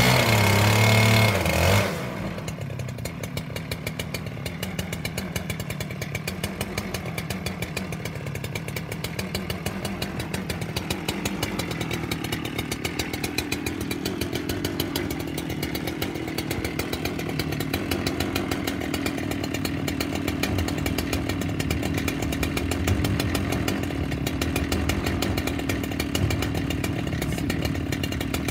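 Chainsaw on a homemade chainsaw mill with a six-foot bar, running steadily as it cuts through a large stump. It is louder for about the first two seconds, then settles to an even drone.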